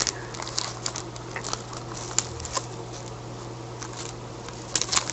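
Hands handling a trading card and its packaging: scattered light clicks and rustles, busier near the end, over a faint steady hum.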